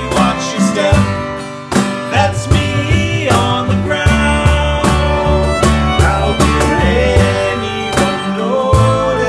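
Acoustic string band playing a song: upright bass plucked, acoustic guitar strummed and fiddle bowed, with men's voices singing over a steady pulsing bass line.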